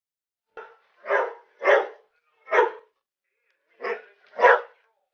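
Young golden retriever barking excitedly, about six sharp barks: three in quick succession, a pause, then a closing pair.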